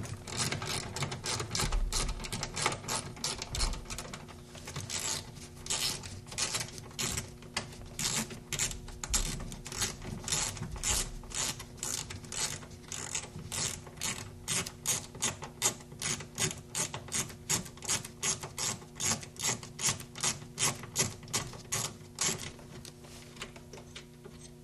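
Quarter-inch-drive ratchet with a 6 mm socket clicking as it is swung back and forth to back out the screws holding a door speaker. The clicks come in a steady run of about three a second and stop near the end.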